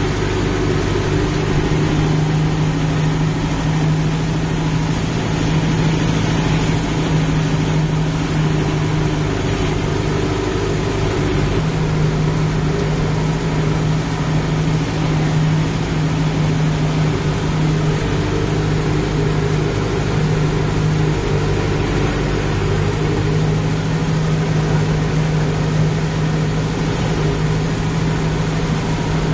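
Kubota MU5502 tractor's four-cylinder diesel engine running steadily under load while pulling a rotavator through wet paddy mud. The engine note weakens briefly twice.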